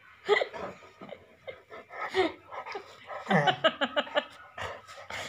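A dog whining and whimpering in short cries that rise and fall, with breathing close to the microphone, while it nuzzles a person's face.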